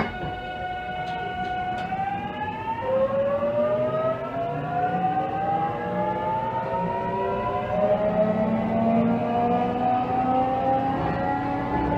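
Toshiba GTO VVVF inverter and traction motors of a JR Kyushu 813 series electric train accelerating from a stop, heard from inside the car. A steady whine starts rising about two seconds in, drops to a lower pitch about a second later, then climbs slowly as the train gathers speed, over a low running hum.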